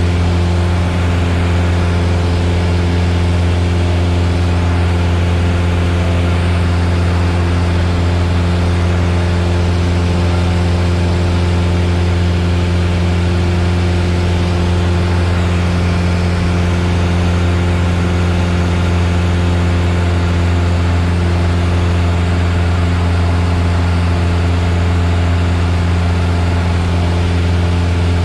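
Piper Warrior's four-cylinder Lycoming engine and propeller running steadily, heard from inside the cockpit as an even, unchanging low drone.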